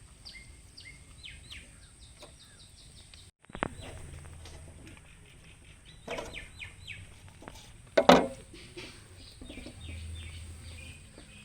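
Small birds chirping in quick runs of short, high notes, with a few sharp knocks from handling, the loudest about eight seconds in.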